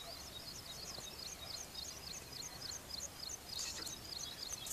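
A bird calling in a rapid series of short, high chirps, about three or four a second, over faint outdoor background noise, with a couple of brief hissy sounds near the end.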